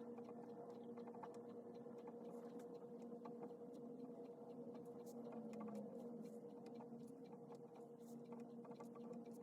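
Faint pen-on-paper writing: small irregular ticks and scratches of a pen copying text by hand, over a steady low electrical hum.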